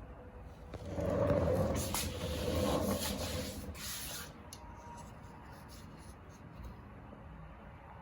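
Newly installed motorcycle radiator cooling fans running, a rushing of air that is louder for the first few seconds and then settles to a steadier, quieter hiss.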